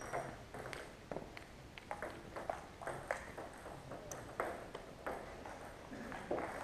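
Table tennis ball clicking off the bats and the table during a serve and rally: a string of sharp ticks at an uneven pace, several a second.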